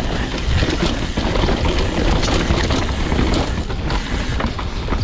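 Mountain bike riding down a wet dirt trail: wind rushing over the microphone, with tyre noise and a steady run of small rattles and knocks from the bike.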